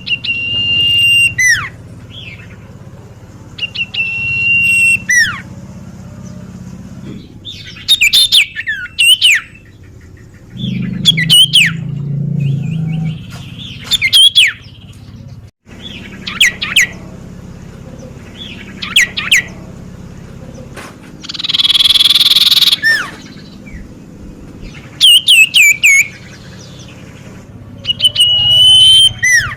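Common iora (cipoh) calling over and over: loud whistled calls every few seconds, some a held high note that drops away at the end, others quick clusters of sweeping notes, with one harsh rasping call about two-thirds of the way through.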